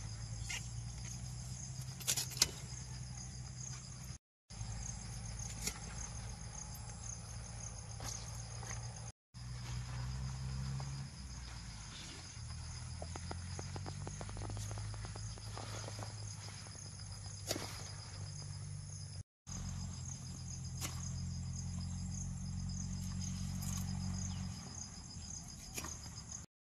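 Insects trilling steadily in a high, pulsing chorus, with a few sharp snaps as a hand blade cuts through taro leaf stalks.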